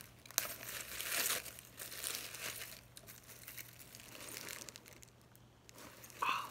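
Brown kraft packing paper and plastic wrap crinkling and rustling as a parcel is unwrapped by hand, with a sharp click about half a second in. A brief vocal sound comes near the end.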